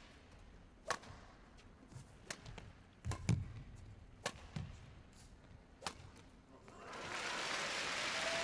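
Badminton rally: rackets strike the feathered shuttlecock with sharp cracks about once a second, and a heavy footfall thuds on the court midway. Near the end the crowd noise swells as applause.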